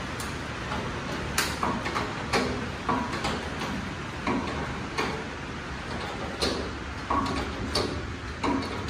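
A 2.5-ton hydraulic floor jack being pumped by its long handle, with a metallic click or knock at each stroke, roughly one or two a second, as it lifts a motorcycle scissor lift.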